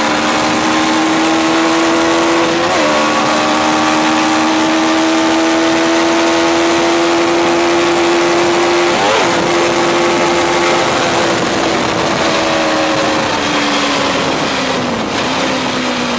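1992 Honda CBR600 four-cylinder motorcycle engine in a homemade buggy, driven hard with its engine note slowly climbing, briefly broken twice, then falling away near the end as it slows. It runs through motorcycle mufflers and is loud because a nut is missing on a header pipe.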